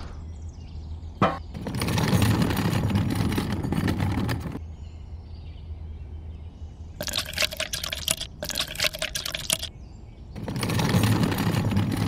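Liquid pouring and splashing in three spells: about a second in, a more crackly spell in the middle, and again near the end, over a steady low hum.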